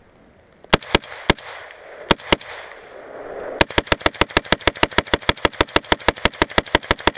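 Gunfire: five separate shots in the first couple of seconds, then a long rapid string of about thirty shots at an even pace of roughly eight a second.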